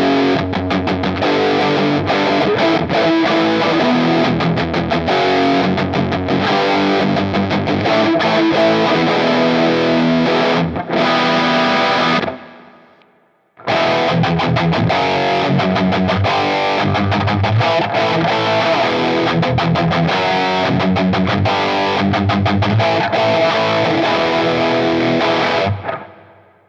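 Electric guitar played through the Flamma FS06 preamp pedal's Mark V high-gain (dirty channel) amp emulation: a distorted rock riff, which breaks off about halfway through and starts again after about a second of silence.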